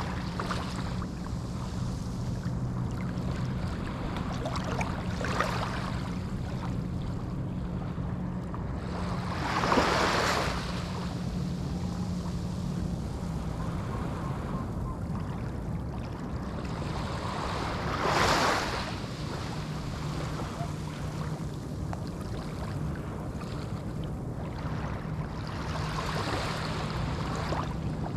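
Small ocean waves washing onto a sandy beach: a steady hiss of surf, with two louder breaks about ten and eighteen seconds in.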